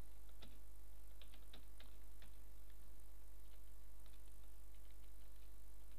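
Faint computer keyboard keystrokes as code is typed, in a run of clicks over the first couple of seconds and another run about four seconds in. A steady low electrical hum sits underneath.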